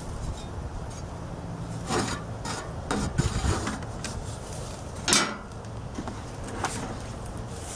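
Plastic front panel of a window air conditioner being worked loose and pulled off: rubbing and scraping of plastic, with a few knocks and a sharp clack about five seconds in, the loudest of them.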